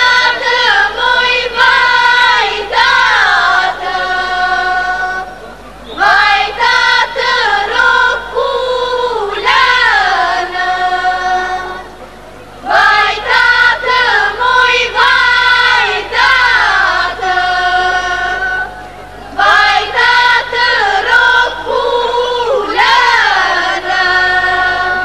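Women's choir singing an Albanian folk song in phrases of about six seconds, each followed by a brief breath pause.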